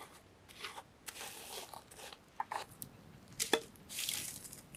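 Dry twigs, leaves and ash crunching and crackling as they are handled and laid over the buried eggs, in scattered short clicks and crunches, with a sharper snap about three and a half seconds in. By the end a small wood fire is burning on top.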